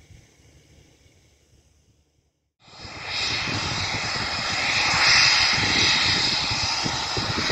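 Faint background for the first couple of seconds. Then, from about two and a half seconds in, the loud, steady roar and high whine of Eurofighter Typhoon fighter jets' twin engines at takeoff power as they roll down the runway.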